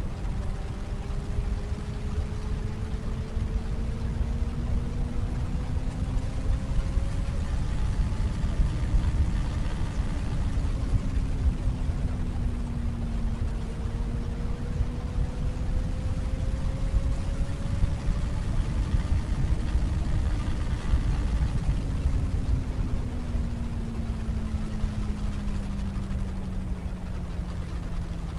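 Wind buffeting the microphone on a moving Benelli BN600i motorcycle, louder than the bike's inline-four exhaust. The exhaust note rises and falls gently with the throttle while cruising, easing down near the end.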